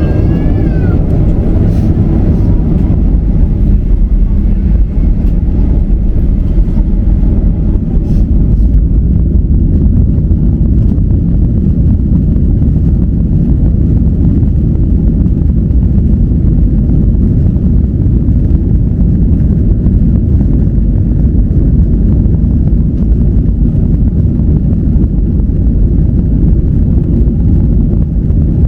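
Airliner engines at takeoff power, a loud steady low rumble that does not let up, with a faint falling whine in the first second.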